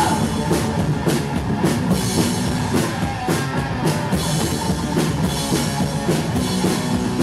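Live rock band playing an instrumental passage of a song: drum kit with a steady beat under guitar, with no singing.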